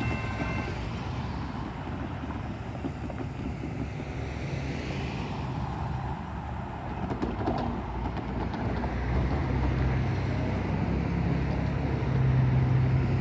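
Road traffic crossing a railroad crossing: car and pickup engines and tyre noise, growing louder in the last few seconds as a vehicle pulls away. The crossing's electronic bells ring a last moment and cut off under a second in.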